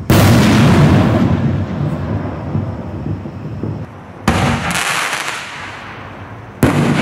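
Black Cat 5-inch canister firework shells: one shell bursts with a loud bang just after the start, and the rumble echoes away over several seconds. About four seconds in comes a sharp thump as the next shell is launched from the mortar tube, and near the end that shell bursts with another bang.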